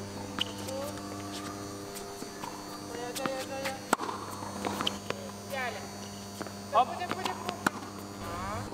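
Tennis balls struck with rackets and bouncing on a hard court: a scattering of sharp pops over a steady electrical hum, with a few brief voices.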